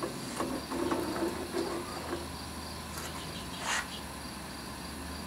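A ladle scraping and clinking inside a melting pot as molten lead is scooped out, over the steady hum and hiss of a gas burner. A short hiss comes a little over three and a half seconds in.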